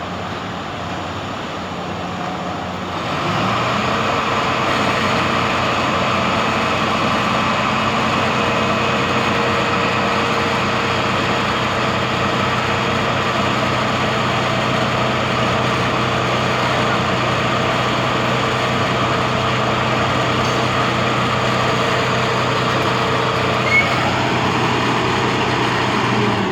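Heavy engine running steadily; about three seconds in it picks up speed and grows louder, then holds at the higher pitch.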